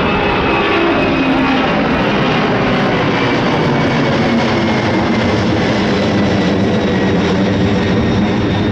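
Boeing 767-300ER jet airliner's engines on departure: a loud, steady jet noise with several faint whining tones that slide slightly lower.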